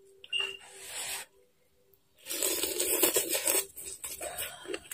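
A person slurping soup noodles off chopsticks: a short slurp near the start, then a longer, louder slurp a little after two seconds in.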